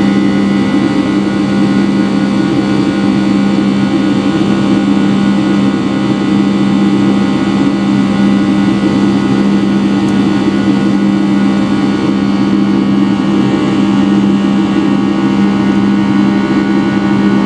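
Rolls-Royce RB211-535E4B turbofan of a Boeing 757-300 running at high power in the climb, heard from inside the cabin beside the engine. It makes a steady, loud drone with a strong low hum and a buzz-saw of many steady tones layered above it.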